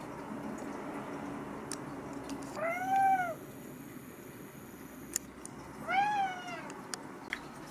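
A cat meowing twice, about three seconds apart; each call rises and then falls in pitch.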